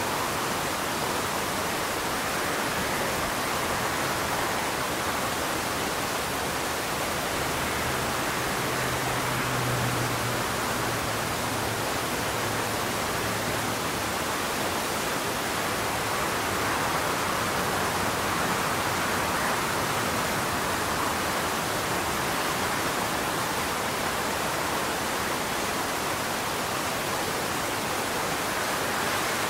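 Steady rushing noise, even throughout, with a faint low hum for a few seconds near the middle.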